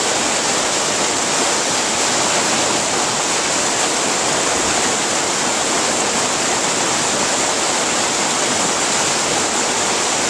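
Mountain creek rushing over rocks: a steady, even rush of flowing water.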